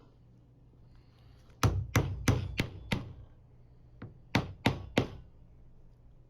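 Sharp blows on an aluminum block, banging a press-fit socket into a gear. Five quick blows come about a second and a half in, then three more near the end.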